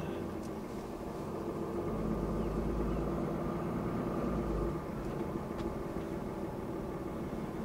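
Pickup truck driving slowly, heard from inside the cab: a steady low rumble of engine and tyres on the road.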